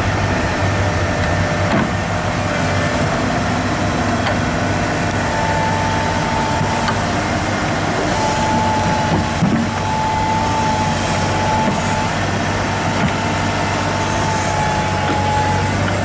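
Komatsu PC200-8 excavator's diesel engine running steadily under working load while the bucket presses on its thrown track, with a thin high whine that comes and goes from about five seconds in.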